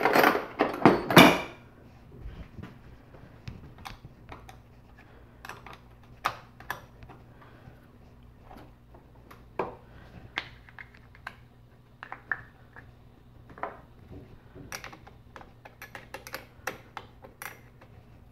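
Scattered light metallic clicks and taps of a wrench on the battery terminal clamps as the cables are loosened and disconnected.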